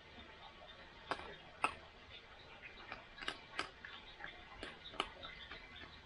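Raccoon eating dry cat food from a dish: irregular crunches and sharp clicks of kibble and the dish, a handful of them louder than the rest.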